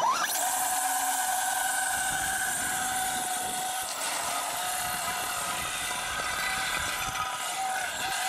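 Brushless electric motor of a 1/7-scale RC monster truck (Castle Mamba Monster 2200kv on a 22.2 V LiPo) winding up with a quick rising whine, then holding a steady high whine over a rushing hiss as it drags a concrete cinder block across asphalt. Under the load the custom slipper clutch is slipping; the owner says it burned its pad.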